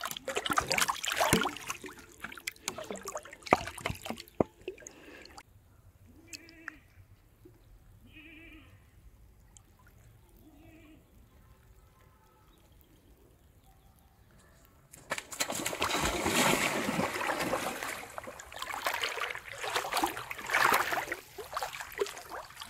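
Plastic bottle float splashing and jerking in the river as a hooked fish pulls on it, for about five seconds. After a quiet stretch, water sloshes loudly for the last several seconds as a person wades through the river.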